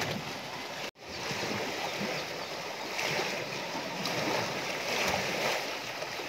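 Steady splashing and pouring of water: a hose jet falling into an elephant's bathing tank and the elephant shifting in the water as she is scrubbed. The sound drops out for an instant about a second in.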